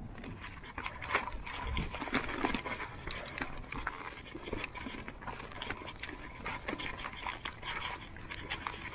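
Mountain bike riding over a rough, stony trail: tyres crunching on gravel and the bike rattling, with a steady stream of irregular clicks and clatters.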